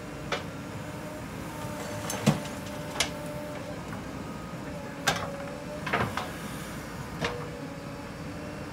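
JCB 3DX backhoe loader working: its diesel engine runs steadily with a faint whine as the arm swings to dump a bucket of earth. About six sharp knocks from the bucket, arm and load break through, the loudest a little over two seconds in.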